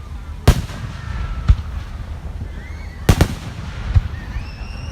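Fireworks bursting: a series of sharp bangs, about one a second, with a quick double bang just past the middle, over a low steady rumble.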